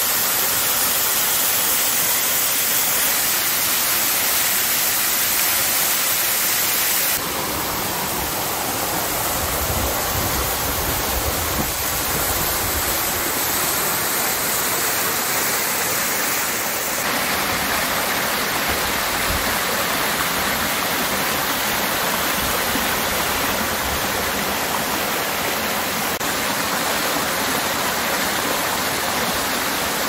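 Steady rushing of a waterfall splashing onto rocks. The rush drops a little in level and changes tone abruptly about seven seconds in and again around seventeen seconds, with some low rumble near the tenth second.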